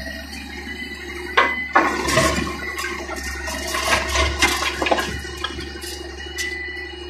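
Hitachi wheeled excavator running, its engine giving a steady low drone with a thin steady whine above it. From about a second in to about five seconds, a loud, irregular rushing and crackling of loose earth and stones being moved by the machine rises over it, then settles back to the engine alone.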